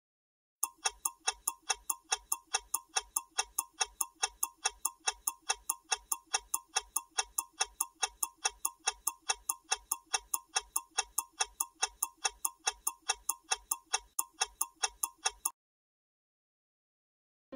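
Clock-style ticking sound effect of a quiz countdown timer: an even, rapid ticking several times a second. It starts about half a second in and stops about two seconds before the end.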